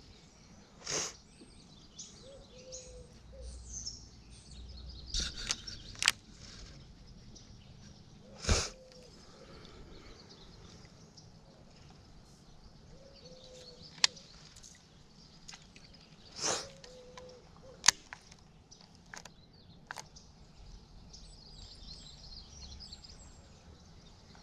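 Birds chirping in the background, with scattered short clicks and knocks, a few of them louder.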